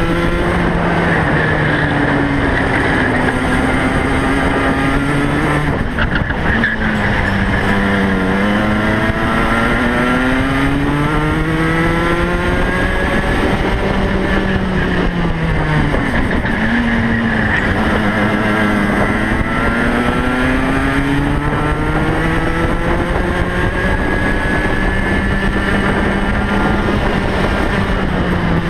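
A racing kart's engine heard from on board at race pace, its note rising steadily under acceleration and dropping sharply several times as the driver lifts and brakes for corners.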